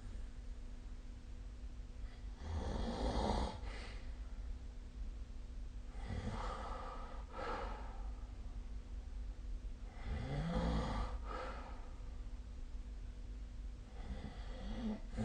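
A sleeping person snoring, a rasping snore with each breath about every four seconds; the loudest snores come about three and ten seconds in.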